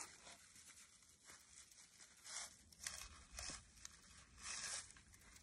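Faint scratchy rasps of a snipped strand of galvanized chicken wire being unravelled from the roll, the wire scraping through the mesh in several short pulls.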